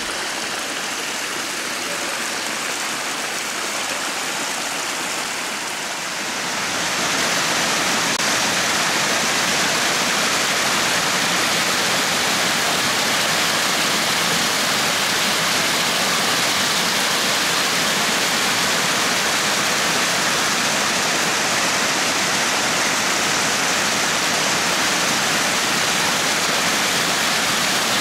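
Shallow brook running over its muddy bed, then from about seven seconds in the louder, steady rush of a small waterfall pouring down a bank and splashing into a pool.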